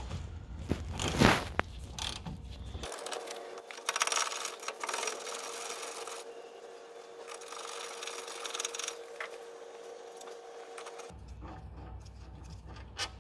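Socket ratchet clicking and scraping as the 18mm brake caliper carrier bolts are undone and wound out, with a sharp knock about a second in.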